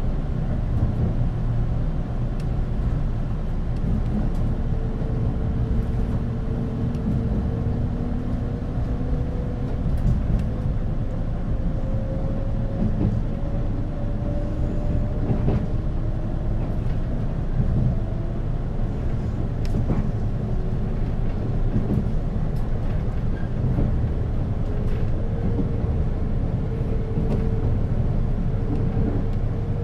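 Running sound inside a JR East 485-series EMU motor car: a steady low rumble of wheels and running gear, with the traction motor whine rising slowly in pitch twice as the train gathers speed, and a few sharp clicks.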